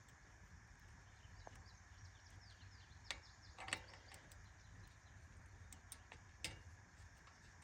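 Near silence broken by a few faint clicks as the side-cover bolts are spun off by hand, with faint bird chirps in the background.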